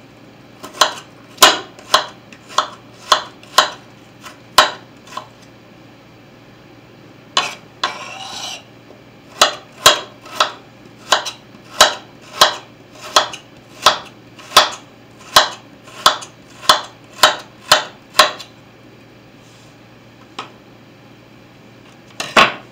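Kitchen knife chopping a red onion on a wooden surface: sharp knocks about two a second, a short break with a brief scrape about a third of the way in, then another steady run of chops.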